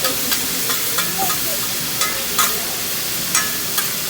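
Food sizzling on a hibachi griddle as a steady hiss, with about seven sharp clicks scattered through it.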